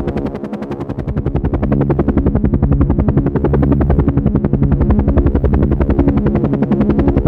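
Helicopter running with its rotor blades beating in a fast, even chop over a steady engine hum. The sound dips slightly just after the start and comes back up within about a second.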